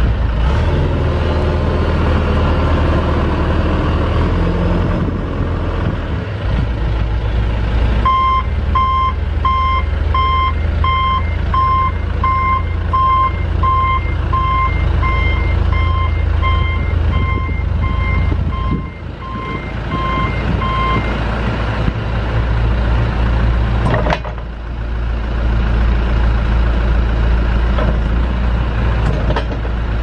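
John Deere 310SG backhoe's four-cylinder turbo diesel running, with its backup alarm beeping in a steady, evenly spaced run for about thirteen seconds while the machine is in reverse. A single sharp clunk comes near the end.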